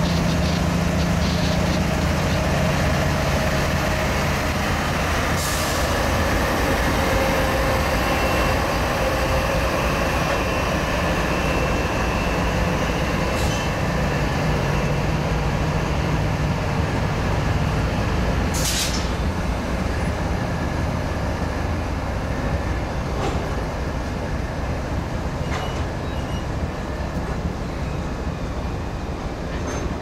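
Freight train rolling slowly past as it slows to a stop: the low drone of a GE ES40DC diesel locomotive's engine, then the steady rumble of loaded flatcars. A few brief sharp noises from wheels and brakes.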